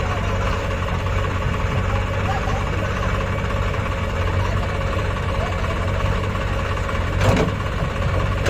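Diesel tractor engine running at a steady speed, a low even drone, with one brief sharp sound about seven seconds in.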